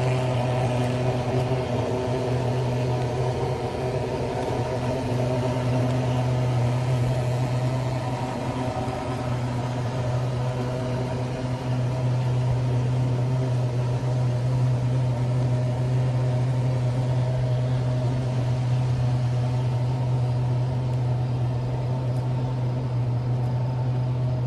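A steady, unchanging low machine hum with several overtones above it, its level even throughout.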